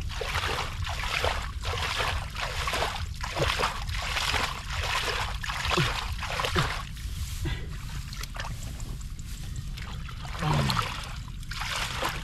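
Shallow, muddy field water being splashed and sloshed by hand in quick repeated strokes, about two a second, while the nearly drained ditch is worked for fish. It eases off about two-thirds of the way through, with one more splash near the end.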